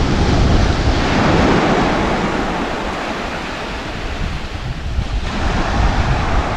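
Small sea waves breaking and foamy surf washing up a flat sandy beach, swelling about a second in and again about five seconds in, with wind rumbling on the microphone.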